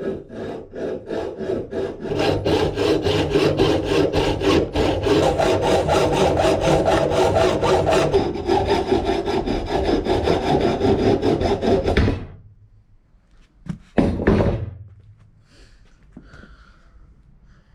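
Saw cutting through an aluminium tube with steady back-and-forth strokes, about four a second, stopping about twelve seconds in; a short loud knock follows a couple of seconds later.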